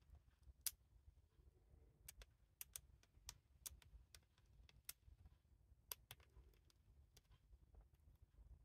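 Syrian hamster gnawing on a peanut, its teeth cracking the shell in faint, irregular sharp clicks, about one or two a second.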